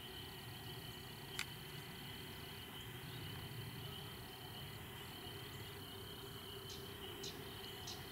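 Faint, steady chorus of insects trilling on a few fixed pitches, with one sharp click about a second and a half in.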